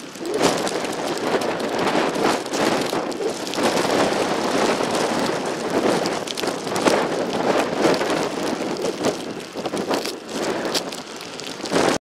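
Rain falling steadily, fairly loud, its level rising and falling irregularly.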